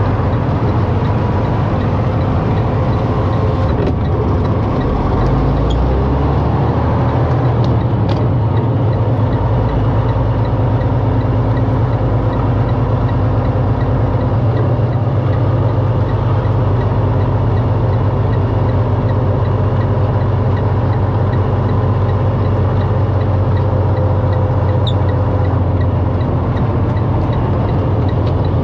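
Semi-truck diesel engine heard from inside the cab, running steadily with a low drone as the truck rolls slowly over a dirt road.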